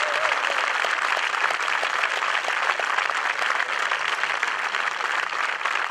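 A crowd applauding: many hands clapping in a steady, even patter.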